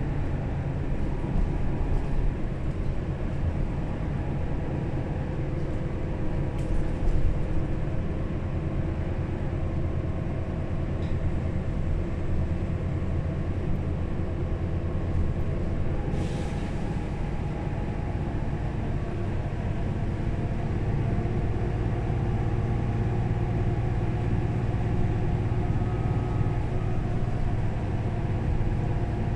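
Mercedes-Benz O530 Citaro Facelift city bus heard from inside on the move: a steady diesel engine drone with road rumble, the engine note changing about twenty seconds in. A brief hiss comes about sixteen seconds in.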